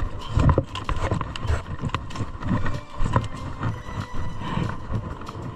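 A large snakehead fish flopping on gravel ground out of the water, its body slapping the dirt and stones in irregular thumps and knocks.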